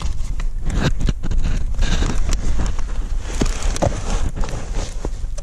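Close handling noise of a car's floor carpet and its fibrous padding being pulled back and pushed about by hand: irregular rustling and scraping with scattered knocks and clicks over a low rumble.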